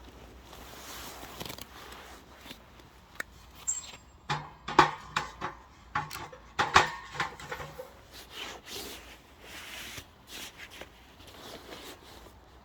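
Oak logs being loaded into a steel wood-burning stove: a run of wooden knocks and ringing metal clanks, loudest about five and seven seconds in, with quieter clicks and shuffling before and after.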